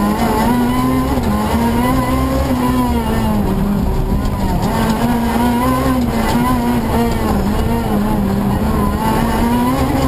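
Renault Clio R3 Maxi rally car's 2.0-litre four-cylinder engine at racing speed, heard from inside the cabin, its revs rising and dipping again and again as the driver works through the gears.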